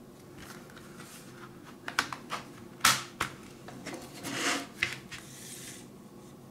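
Plastic CD jewel case being handled and opened: a few sharp plastic clicks, the loudest about three seconds in, then a short scraping rustle.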